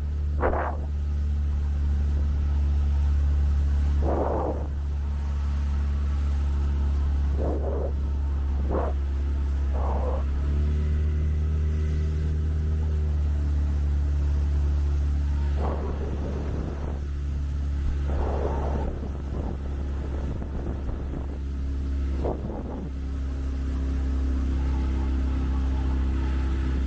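A vehicle engine running steadily with a low rumble, its pitch shifting slightly a couple of times, with a few short louder sounds over it.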